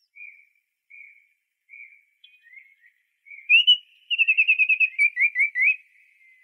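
Songbird singing in clear whistles. A few soft notes come first, then about three and a half seconds in a loud, quick run of slurred whistles, ending with a few rising ones.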